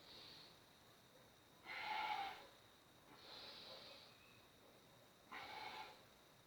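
A person breathing slowly and audibly in paced yoga breaths: soft airy hisses alternating with two louder, fuller rushes of air, about three and a half seconds apart.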